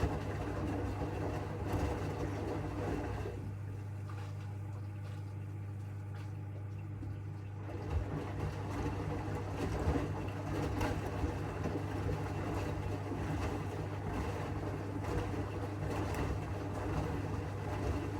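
AEG 8000 Series LR8FL160EX front-loading washing machine tumbling bath mats in its drum, with a steady motor hum under the churning of the wash. The churning eases for a few seconds about four seconds in, then resumes with a few knocks.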